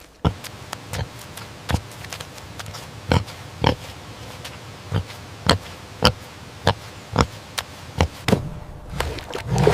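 An animal making a series of short, sharp snorts or grunts, irregularly spaced at about one or two a second.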